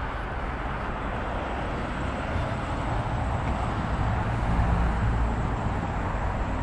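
Steady low rumbling outdoor noise, a little louder in the middle.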